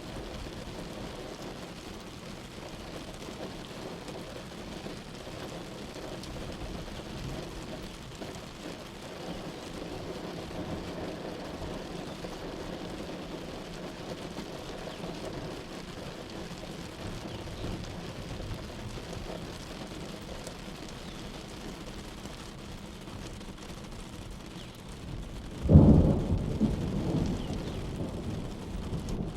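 Steady heavy rain with low rolling thunder, then a sudden loud thunderclap near the end that rumbles away over a couple of seconds.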